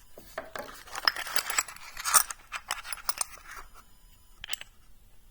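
Small metal tool parts clinking and rattling as they are handled: a quick run of clicks and chinks for about three seconds, then one more click near the end.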